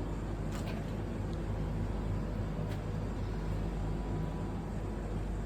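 Refrigerated vending machine's cooling unit humming steadily, with a couple of faint clicks.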